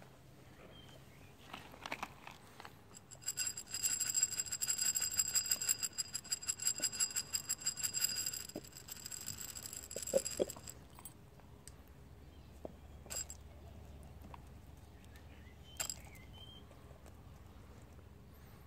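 Feed pellets rattled fast inside a stemmed wine glass: a rapid clinking with the glass ringing, starting about three seconds in and stopping about eight seconds later, followed by a few single clicks against the glass.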